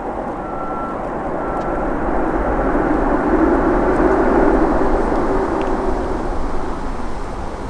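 Jet airliner's engines and rushing air swelling to a peak about four seconds in, then easing off, as the plane passes close by on landing.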